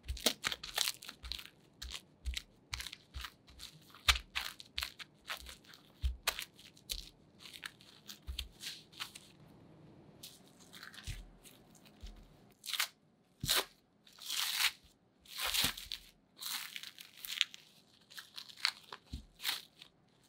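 Cling film wrapped around tart dough crinkling in many sharp crackles as hands press and handle it, with soft low thumps as the dough is pressed against the table. In the second half come longer, louder crinkles as the film is opened out around the flattened dough.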